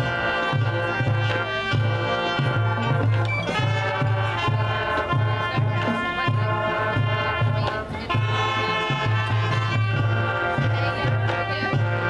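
High school marching band playing: brass and woodwinds sustaining full chords over a steady pulsing low bass line and drums.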